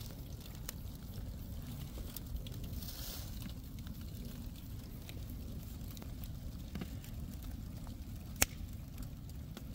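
Fire of cardboard and scrap wood burning with a steady low rumble and scattered faint crackles, and one sharp pop about eight seconds in.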